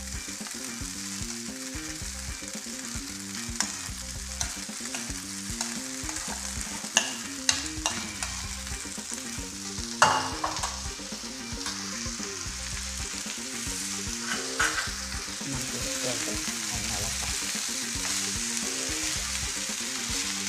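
Rice and vegetables sizzling steadily in butter in a non-stick frying pan while cooked rice is added and stirred in with a spatula. A few sharp utensil clicks against the pan and plate come through, the loudest about halfway through.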